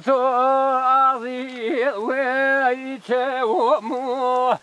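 A man singing siachamane, the unaccompanied Kurdish vocal style, in a high voice: long held notes broken by fast quivering ornaments and sliding turns, in several short phrases.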